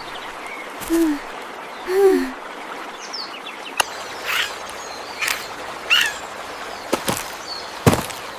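Animal calls over steady background noise: two low, bending hoot-like notes about a second apart, then a run of short, sharp chirps roughly once a second.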